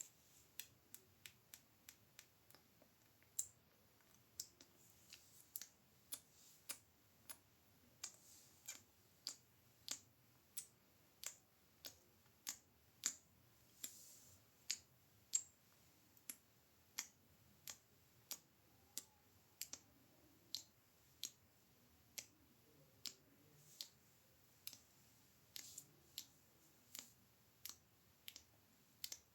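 Close-miked ASMR mouth clicks: sharp, separate clicks made with the mouth, about one or two a second, in a steady run.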